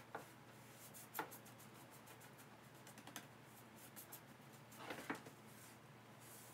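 Faint brush strokes of a paintbrush laying chalk paint onto a wooden cabinet door: a few short scrapes and light taps, the loudest about a second in and near five seconds, over a low steady room hum.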